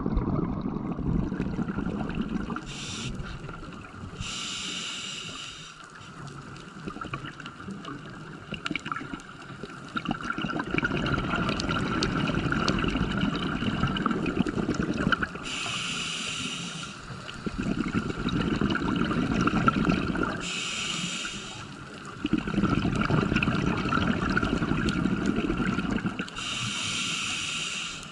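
Scuba diver breathing through a regulator underwater: a short hiss of inhaled air, then a longer gurgling rush of exhaled bubbles, repeating several times at a slow, even pace. A steady faint tone runs underneath.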